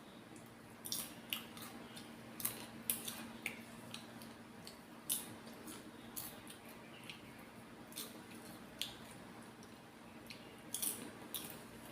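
Someone eating microwave popcorn: irregular sharp crunches and crackles, some in quick clusters, over a faint steady hum.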